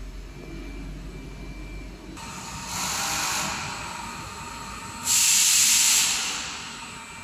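Two bursts of hissing, about a second each, starting and stopping abruptly, the second one louder, over a low steady machine hum.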